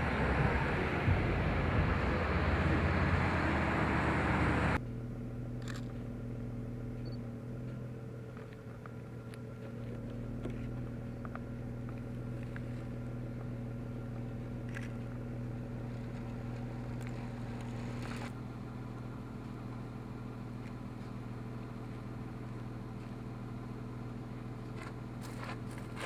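Motor vehicle sounds: loud rushing wind and road noise for about five seconds, then an abrupt cut to a steady, quieter engine hum with a few faint clicks.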